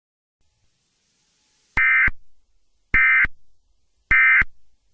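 Three short, identical bursts of Emergency Alert System end-of-message data tones, evenly spaced about a second apart, sounding the close of the alert broadcast.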